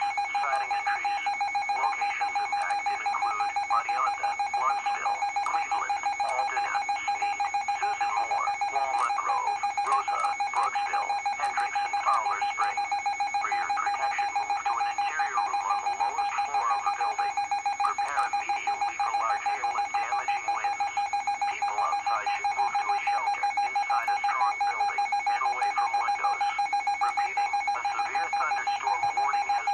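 Electronic alarm going off, beeping rapidly and without pause over a steady shrill tone.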